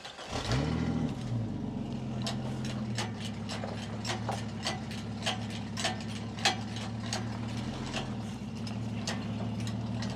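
A vehicle engine starts about half a second in, revs up briefly and settles into a steady idle. A regular light clicking, roughly three clicks a second, runs over the idle.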